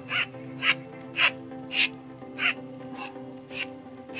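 Flat metal hand file rasping on a small metal pin, cleaning it before soldering, in about seven short, even strokes, a little under two a second.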